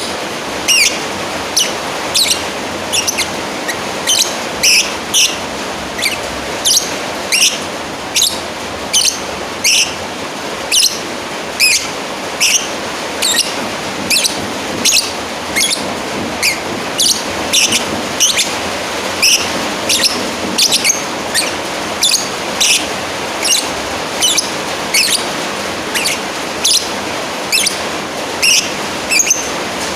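Lovebird giving short, shrill, high-pitched chirps about twice a second, over a steady hiss. It is the repeated call a lovebird uses to challenge a rival.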